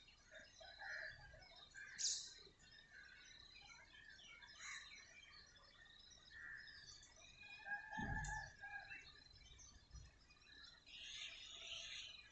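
Faint chirping and twittering of many small birds, with a brief low thud about eight seconds in.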